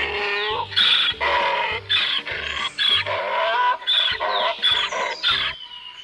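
Donkey braying: a long run of hee-haw calls, the high wheezing notes alternating with deep low ones about twice a second, stopping about five and a half seconds in.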